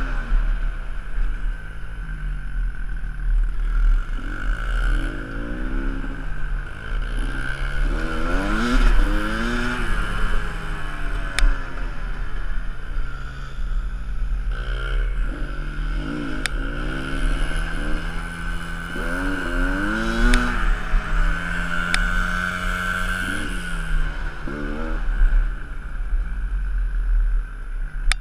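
Two dirt bike engines, one of them a small Honda 70 four-stroke, running at low speed and repeatedly revving up and dropping back as the throttles open and close. A few sharp clicks sound along the way.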